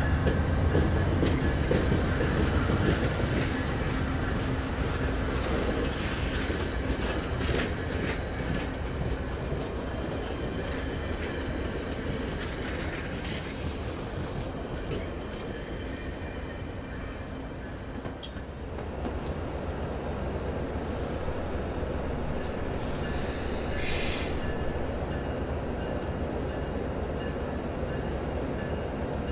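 Passenger train cars rolling past on steel rails in a steady rumble, with wheels clicking over rail joints and a few brief high squeals. The rumble eases as the train draws away, then rises slightly again.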